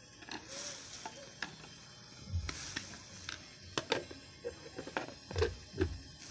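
Lid and motor head of an electric kitchen meat grinder being fitted onto its bowl: a series of knocks, clicks and short scrapes, over background music.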